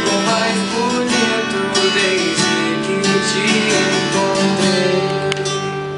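Takamine acoustic guitar strumming the song's closing chords. About five seconds in, a last chord is left ringing and begins to fade.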